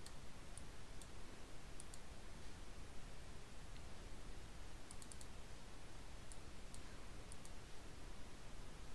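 Faint computer mouse clicks, a few scattered single clicks and a quick run of three about five seconds in, over a low steady hum of room noise.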